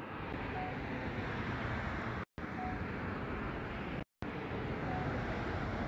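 Steady outdoor background noise, a low even hum and hiss like distant traffic, cutting out completely for a moment twice. Faint short high blips sound about every two seconds.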